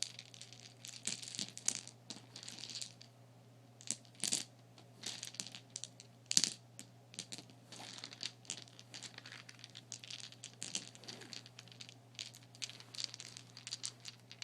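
Plastic hair bobbles clicking and rattling against each other as they are handled, with a few sharper clacks, the loudest about six seconds in.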